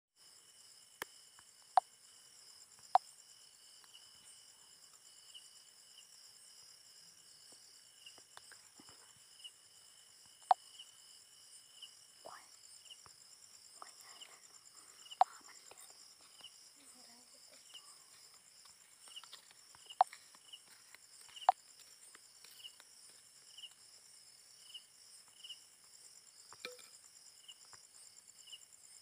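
Faint, steady high-pitched insect chorus, crickets by their sound, with one chirp repeating about once a second. Several sharp, loud clicks stand out above it at irregular moments.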